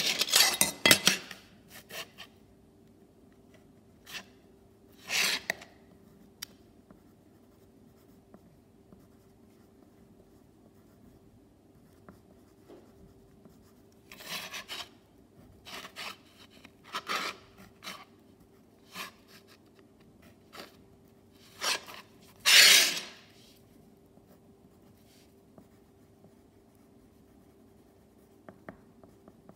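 Pencil writing on a paper worksheet lying on a hard worktop: short scratchy strokes in scattered spells, the loudest and longest about three-quarters of the way through. A faint steady hum runs underneath.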